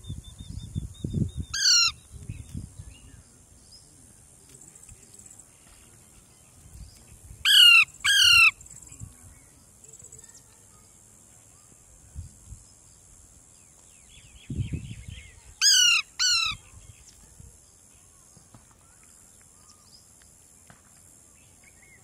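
Alexandrine parakeets giving loud, harsh, downward-sliding screeches: one call about two seconds in, then a quick pair around eight seconds and another pair around sixteen seconds, over a steady high-pitched background hiss.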